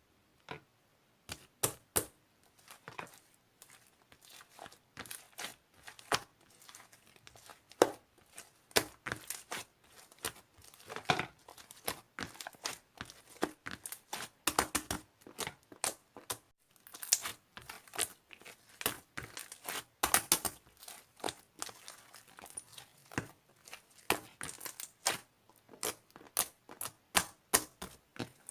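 Slime being squeezed, poked and stretched by hand, giving an irregular run of sharp pops and crackles as air pockets burst, starting about a second in.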